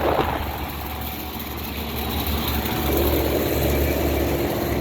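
Outdoor central air-conditioner condensing unit running: a steady low compressor hum under an even rush of fan noise, with a faint steady tone joining about halfway through.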